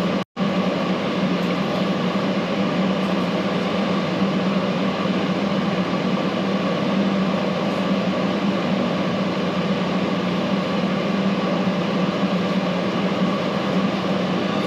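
Steady hum and rush of air from a running fan-type machine, with a constant low tone under it, cutting out for a split second just after the start.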